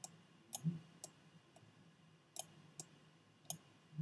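Computer mouse clicking: about six or seven sharp single clicks at uneven intervals, with a short low thud about half a second in.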